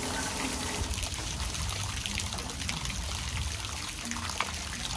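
Water trickling and splashing steadily through a window air conditioner as it is rinsed out, washing bleach and loosened grime from the unit.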